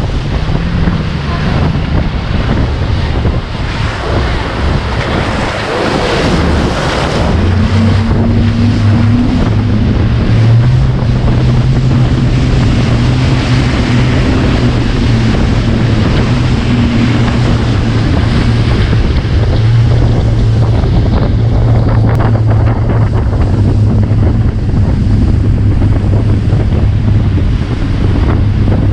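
Motorboat engine running at a steady pitch under loud wind buffeting on the microphone and rushing water. The engine hum comes in about seven seconds in and holds.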